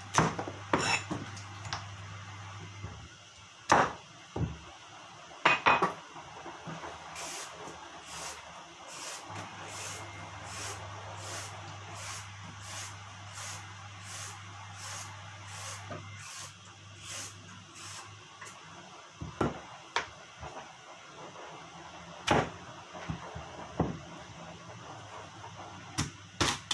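Knife work at a wooden chopping board: scattered knocks of a cleaver on the board, with a run of quick, even scraping strokes in the middle, about two a second for some ten seconds, as a carrot is peeled.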